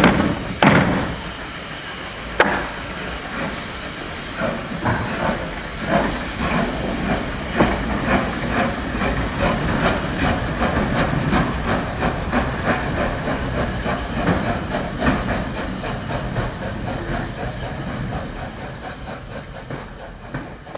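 Steam-hauled train pulling out: a few heavy blows at first, then steam exhaust beats quickening, with steam hissing and carriage wheels clattering on the rails. The sound fades over the last few seconds as the train draws away.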